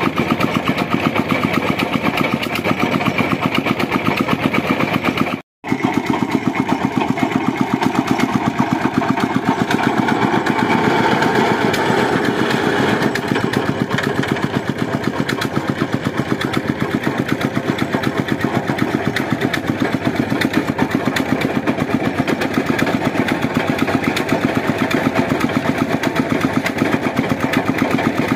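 An engine running steadily with a fast, even beat, cutting out for an instant about a fifth of the way in.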